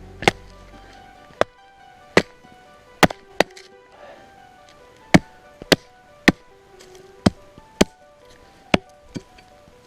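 Wood being chopped for a campfire: about a dozen sharp, separate strikes at uneven spacing, over background music.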